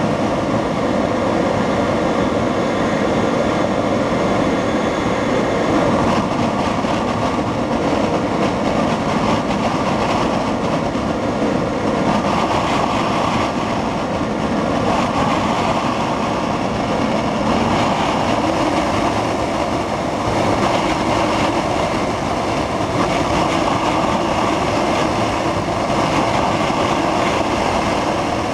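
Homemade electric jet engine running steadily: a brushless electric motor spins a centrifugal compressor that blows air through a burning kerosene combustion chamber, giving a continuous loud rushing noise with no change in speed.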